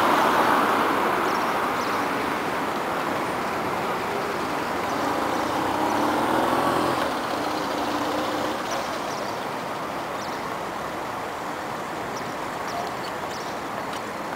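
Street traffic: motor vehicles passing on a busy city avenue, loudest at first and fading, with an engine humming from about five seconds in until it drops away about two seconds later.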